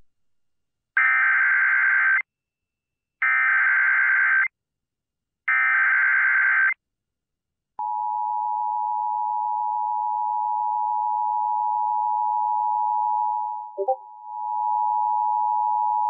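Emergency Alert System activation on AM radio: three SAME header data bursts, each a harsh buzzing screech about a second long with a second's gap between them, announcing a flash flood warning. From about eight seconds in comes the steady two-tone EAS attention signal, with a brief dropout near the end.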